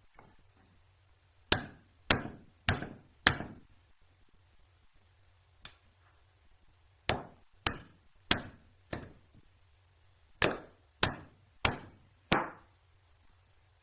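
Hammer blows on a bent moped kickstand, beating it straight. The blows come in three runs of four sharp strikes about half a second apart, with a faint knock between the first two runs. Some strikes carry a high metallic ring.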